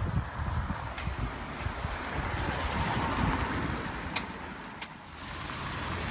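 Road traffic on a wet street: a car passes with tyre hiss that swells and fades, with gusts of wind on the microphone at the start.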